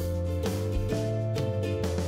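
Background music: held pitched notes with a steady low bass, changing chords every half second or so.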